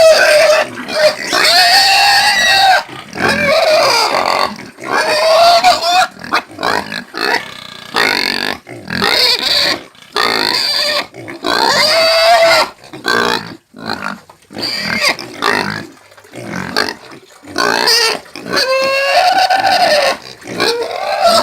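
Domestic pigs squealing over and over: loud, high-pitched calls of about a second each, following one another with short gaps.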